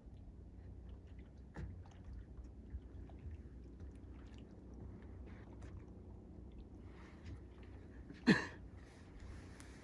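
Small waves lapping and gurgling at the shore, with scattered wet clicks and trickles over a low rumble. A brief, louder sharp sound stands out about eight seconds in.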